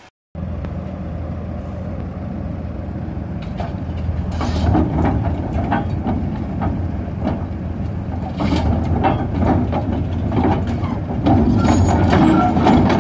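Ruston-Bucyrus 30RB crawler dragline's engine running steadily while its crawler tracks clank, knock and squeal as the machine drives down off a lowboy trailer; the track clatter starts a few seconds in and grows busier and louder toward the end.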